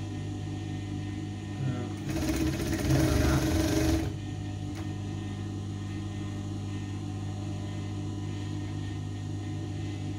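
Overlock machine (serger) running in one burst of about two seconds, starting about two seconds in and stopping abruptly, as it overcasts the edge of a shoulder seam. A steady low motor hum runs underneath.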